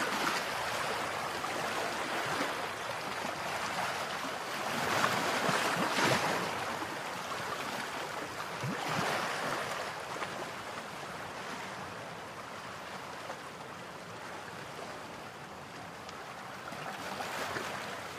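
Rushing floodwater: a steady hiss of fast-flowing, swollen river water running over a road, swelling a couple of times in the first half and easing off later.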